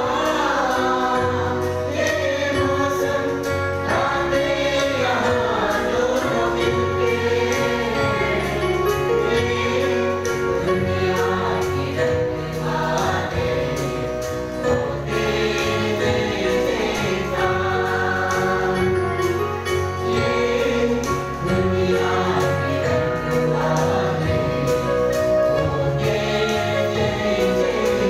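Mixed church choir of men and women singing a Hindi gospel song in unison into microphones, over a steady accompaniment with low bass notes that change every second or two.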